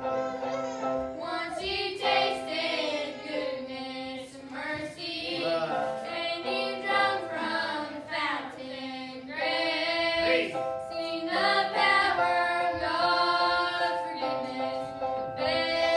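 A song sung to instrumental accompaniment, the voice moving in phrases over long-held chords.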